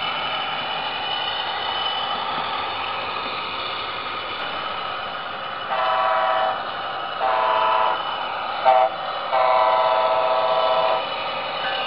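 Sound decoder of an HO-scale Bachmann Amtrak Siemens Charger SC-44 model playing a steady diesel locomotive running sound. About halfway through, its multi-chime horn sounds four blasts, long, long, short, long: the grade-crossing signal.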